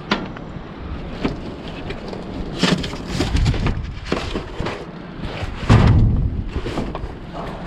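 Strong wind buffeting the camera microphone in gusts, a steady low rumble with several sudden louder blasts, the loudest about six seconds in.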